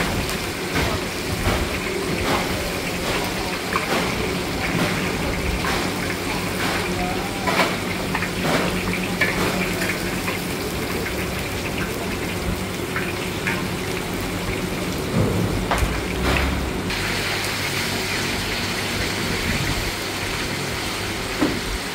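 Hot oil sizzling steadily in a large wok as shrimp cakes deep-fry, with scattered clicks of the metal wire skimmer and ladle against the wok.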